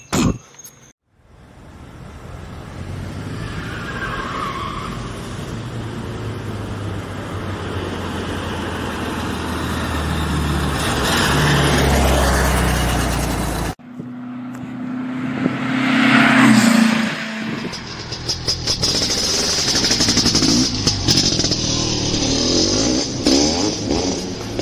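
An air-cooled Volkswagen Beetle engine running as the car drives up and passes, growing steadily louder to a peak about twelve seconds in. After an abrupt cut near fourteen seconds, more vehicle engine sound follows with a brief rising rev.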